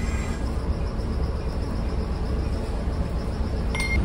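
Steady low rumble of a road vehicle, with a short high electronic beep near the end.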